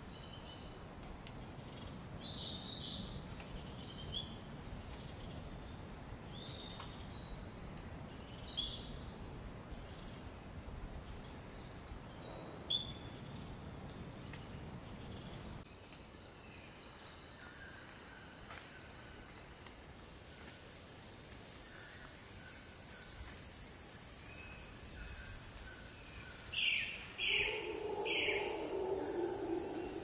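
Rainforest ambience: steady high-pitched insect trilling with scattered short bird chirps. About two-thirds of the way in, a much louder high insect drone swells up over a few seconds and holds, with a few more bird calls under it near the end.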